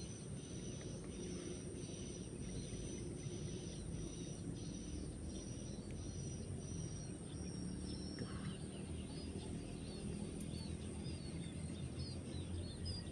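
Insects chorusing in a rice paddy: a steady high-pitched trill runs under a chirp repeated about three times every two seconds. The repeated chirp stops about eight seconds in, and short, quick high calls follow. A low rumble of noise lies beneath.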